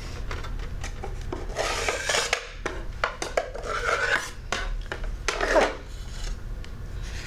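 Fingertips rubbing over a Montessori sandpaper letter, a series of short dry rasping strokes as the letter's shape is traced, with a few light clicks between them.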